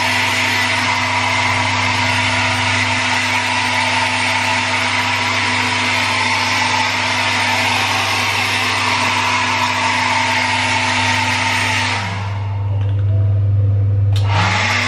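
Wall-mounted hotel hair dryer blowing steadily with a low motor hum, cutting off suddenly about twelve seconds in. A short burst of noise follows near the end.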